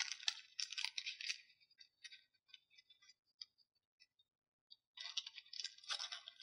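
Faint crinkling and clicking of Pokémon trading cards and their packs being handled, in two spells, for the first second and a half and again from about five seconds in, with a few scattered ticks between.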